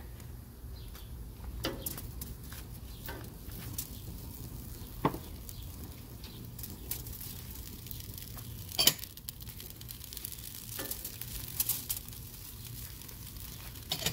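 Tomatillos, tomatoes and serrano chiles set down one at a time on a foil sheet on a gas grill grate, giving scattered knocks and foil crinkles over a faint steady hiss. The loudest knock comes about nine seconds in.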